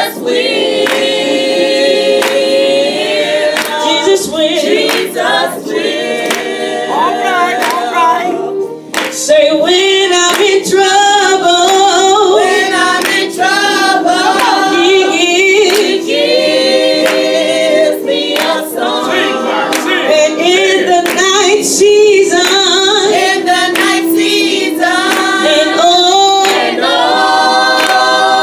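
A small gospel group singing together in call-and-response, a woman leading into a microphone and the others answering, with hands clapping along.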